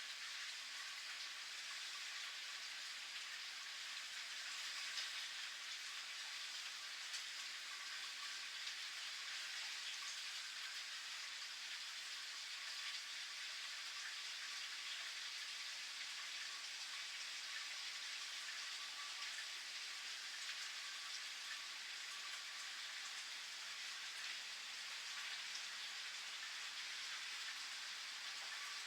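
Steady rain falling, a continuous patter with a few individual drops ticking out a little louder here and there.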